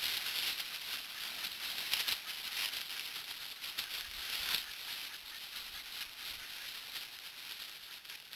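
Dry leaf litter rustling and crunching under footsteps and movement, an irregular crackle with a couple of louder crunches about two and four and a half seconds in.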